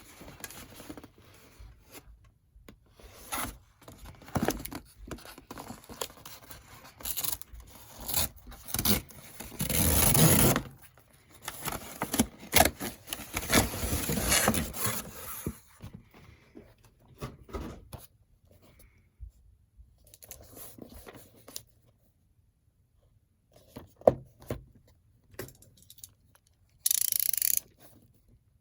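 Packaging of an S.H. Figuarts action figure being handled and opened: irregular clicks, rubbing and scraping of cardboard and plastic. Louder noisy stretches come about ten and thirteen to fifteen seconds in, and a short hiss comes near the end.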